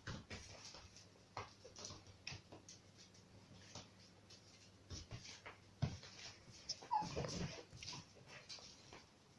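Toy Terrier playing rough with a baby goat: scrabbling and clicking of claws and small hooves on a hard floor, with the dog's short, faint vocal cries, a pitched one about seven seconds in. The loudest moments are a knock about six seconds in and the cry just after it.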